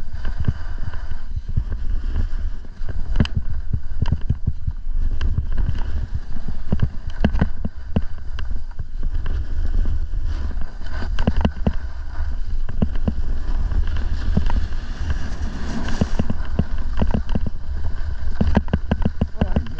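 Heavy wind rumble on the microphone, with irregular knocks and clatters throughout, as of a snowboard sliding and chattering over hard snow.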